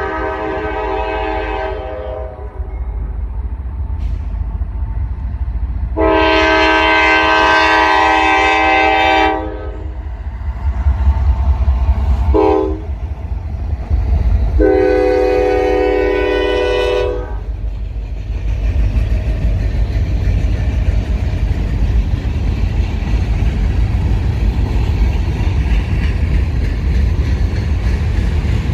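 Norfolk Southern diesel freight locomotive's air horn sounding the grade-crossing signal, long, long, short, long, as the train approaches. Then the steady rumble and clatter of the freight cars rolling past.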